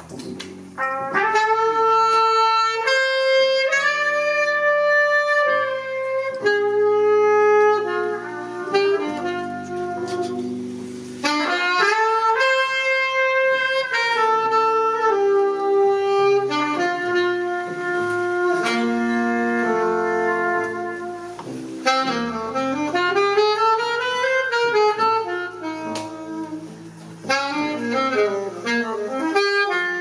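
A jazz saxophone plays a slow melody of long held notes, over a double bass line. The piece is a memorial ballad.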